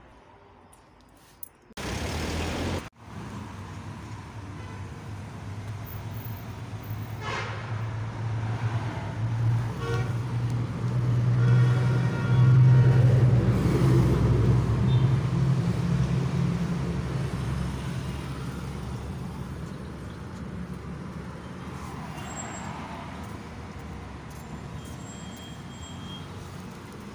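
Road traffic: a motor vehicle's engine rumbling close by, growing louder to a peak about halfway through and then slowly fading away. A short loud burst of noise about two seconds in.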